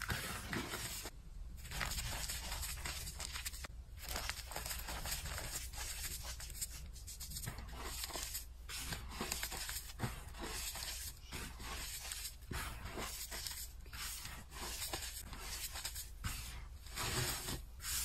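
Reformed gym chalk being pressed, squeezed and raked through by bare hands: a continuous soft crunching and crumbling, with many small crackles as the clumps break up.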